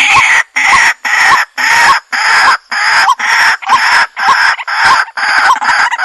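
White-breasted waterhen calling: a harsh call repeated over and over, about ten calls in quick, even succession, each ending in a short rising note.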